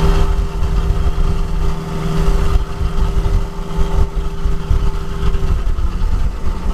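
Vertical milling machine side-milling a steel block with a 3/4-inch four-flute TiN-coated end mill, cutting with the still-sharp sides of a cutter whose end is burned up. It makes a steady hum over a low rumble, and the hum drops away about five and a half seconds in.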